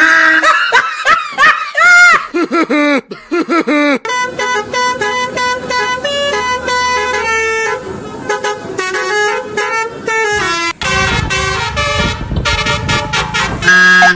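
Basuri telolet multi-tone bus horn playing a tune. It opens with a run of quick rising-and-falling whoops, then plays a melody of held horn notes that step from pitch to pitch, with a fuller, noisier passage near the end.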